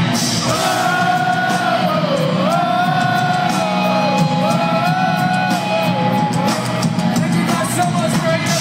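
Live rock band playing loudly, with a singer holding long notes that arch and slide in pitch, one after another.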